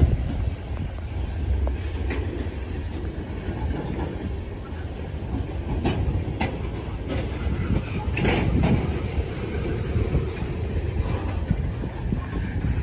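Freight train tank cars rolling past close by: the steady low rumble of steel wheels on the rails, with a few sharp clicks and clanks over the track, the strongest about six and eight seconds in.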